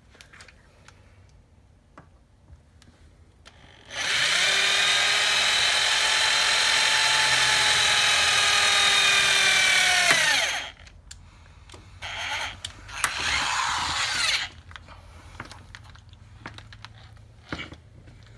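Handheld electric drill running steadily for about six seconds as it drills a small pilot bypass hole through a car thermostat, winding down as it stops. A shorter, rougher burst of drilling follows a couple of seconds later.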